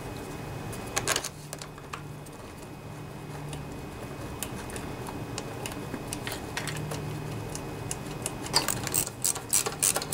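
Sharp clicks and taps of small metal and plastic engine parts being handled and fitted by hand while a carburetor is put back on a small engine. There are a few clicks about a second in and a quick run of clicks near the end, over a steady low hum.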